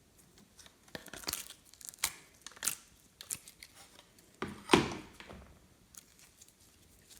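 Glossy slime being worked by hand, making irregular sticky pops, clicks and crackles. The loudest pop comes just under five seconds in.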